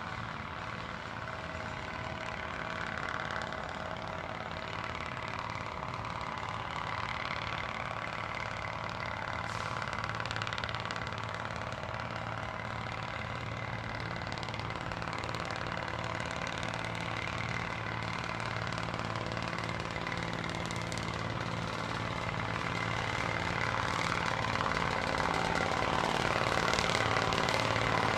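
Locomotive A21.064's engine running steadily, with a constant hum and drone, growing gradually louder toward the end.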